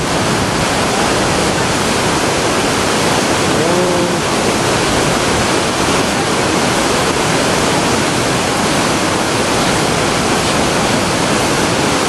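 Fast mountain river rushing over rocks in white-water rapids: a loud, steady rush of water.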